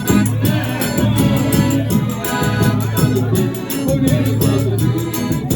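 Forró music playing loud, with singing over it and a quick, even high percussion beat.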